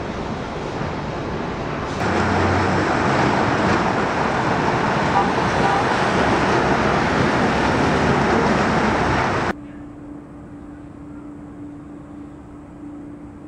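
Road traffic noise from a busy city street with cars and buses passing. It cuts in suddenly about two seconds in and cuts off abruptly after about seven and a half seconds. Around it is a quieter outdoor background, and after the cut there is a steady low hum.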